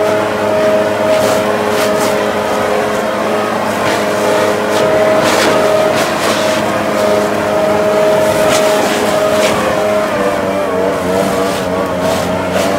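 Echo leaf blower running at high speed, its air blast hissing as it blows grass and dirt off a stand-on mower. Its steady engine whine starts to waver up and down about ten seconds in.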